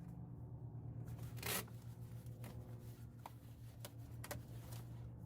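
Faint crinkling and tearing of a plastic door vapor barrier being peeled and folded back, with a noisier crackle about a second and a half in and a few sharp clicks after, over a steady low hum.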